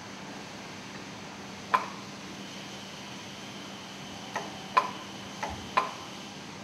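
A mallet knocking on an exhaust valve housing: six sharp blows, each with a short ring. The first comes alone a little under two seconds in, the rest in quick succession near the end, over a steady low workshop hum.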